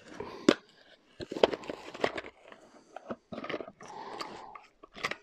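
A cardboard ammunition box being opened and handled, with rustling and sharp clicks of brass rifle cartridges knocking together as they are taken out.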